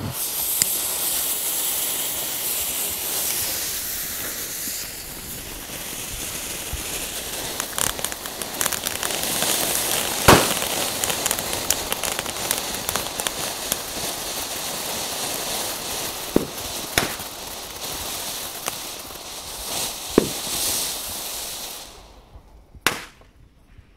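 Vulcan Toverfonteinen, small ground firework fountains, burning together: a steady hissing spray of sparks with scattered crackles and a few sharp pops, the loudest about ten seconds in. The hiss dies out about two seconds before the end.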